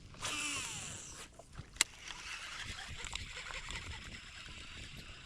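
Fishing cast: line whizzing off a reel for about a second, its pitch falling as the spool slows, then a single sharp click just under two seconds in, followed by softer steady noise.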